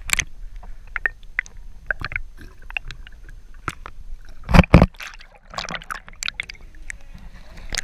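River water splashing and sloshing against a kayak running rapids, with many short sharp slaps and two loud splashes about four and a half seconds in.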